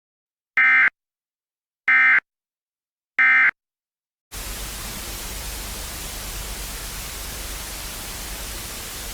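Three short bursts of Emergency Alert System end-of-message data tones, evenly spaced about a second and a quarter apart. A little after four seconds in, a steady static hiss starts and continues.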